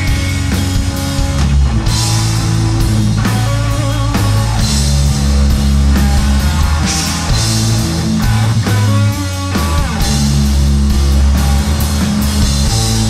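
Live rock band playing an instrumental passage: distorted electric guitar, bass and a drum kit with cymbal crashes.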